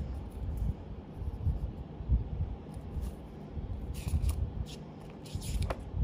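Paper leaflets and card inserts being handled and unfolded, with low handling bumps and short papery rustles about four seconds in and again near the end.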